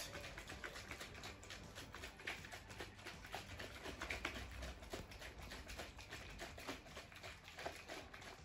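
Plastic shaker cup shaken by hand, mixing energy-drink powder into water: many small quick knocks and sloshing.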